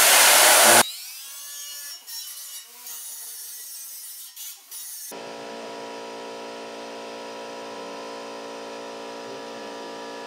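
A loud rushing noise cuts off abruptly under a second in, followed by a faint falling whine. About five seconds in, an air compressor's electric motor starts running with a steady hum.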